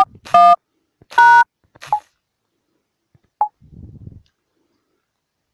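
Phone keypad touch-tones (DTMF) from a smartphone dialer: two short two-tone beeps about a second apart as the last keys of a balance-check code are pressed, followed by a couple of fainter short blips.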